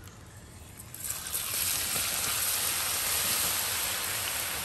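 Chopped raw garlic scraped into hot vegetable oil in a wok: a loud frying sizzle starts about a second in as the oil bubbles up, then holds steady.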